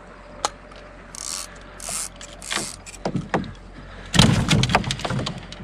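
Knocks, clicks and scraping rustles of gear and a caught catfish being handled on a plastic sit-on kayak deck, with a loud cluster of thumps about four seconds in.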